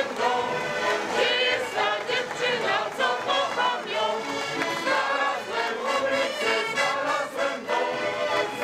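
A group of folk singers in procession singing a song together in unison, backed by accordion and fiddle.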